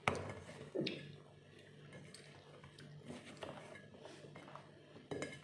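Hands mixing chili-coated brinjal pieces in a stainless steel bowl: faint rustling and light clicks against the bowl, with a sharp click at the start and a few more near the end, over a steady low hum.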